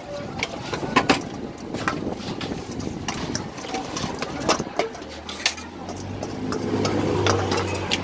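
Metal spoon clinking and scraping against a stainless steel mixing bowl as a spicy seafood salad is tossed and scooped out onto a plate, with sharp clinks throughout. A low engine hum comes in about halfway through.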